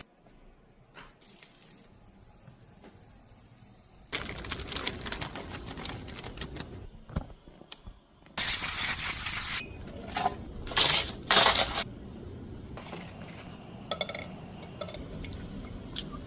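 Kitchen food-preparation sounds in short cut-together stretches: clinks and clatter of dishes, glass jars and cutlery, with a few loud sharp knocks around ten to eleven seconds in.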